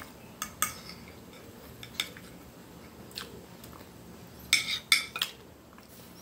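Metal knife and fork clinking and scraping against a ceramic plate. There are a few sharp separate clicks, then a louder cluster of clinks about four and a half to five seconds in.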